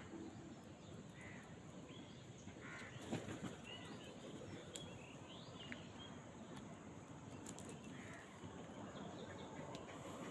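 Faint outdoor ambience with scattered short bird chirps and calls, crows among them, and a brief knock about three seconds in.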